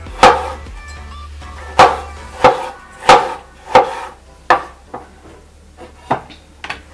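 Kitchen knife cutting a tomato on a wooden cutting board: a series of about nine sharp knocks of the blade striking the board, roughly one every half second to second.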